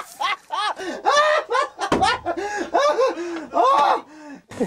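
A man laughing hard, in quick repeated bursts of 'ha' that rise and fall in pitch, with a couple of short breaks for breath. A short sharp knock comes near the end.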